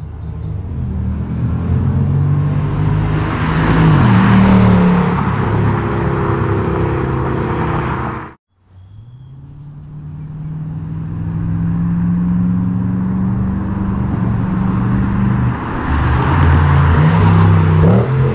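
Lexus IS500's 5.0-litre V8 through an Ark cat-back exhaust as the car drives past, in two separate passes. The sound cuts off abruptly about eight seconds in. The second pass holds a steady note that climbs slowly, then the revs rise sharply near the end.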